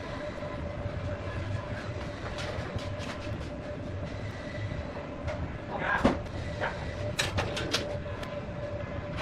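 A power tool's electric motor running steadily with a constant hum, with scattered sharp metallic clicks; the loudest knock comes about six seconds in and a quick run of clicks follows about a second later.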